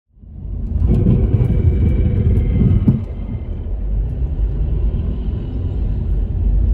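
Road and engine noise inside a Subaru Outback driving on a snow-covered road: a steady low rumble that fades in at the start, with a slight drop about three seconds in.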